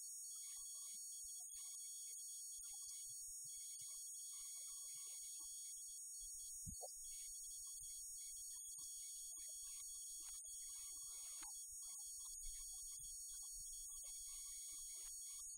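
Faint, steady high-pitched electronic hiss and whine, with no voices, and a few soft low thumps.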